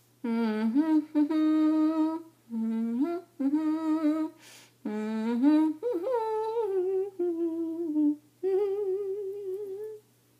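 A woman humming a tune with her lips closed, in about five short phrases of held notes and slides, the last notes wavering.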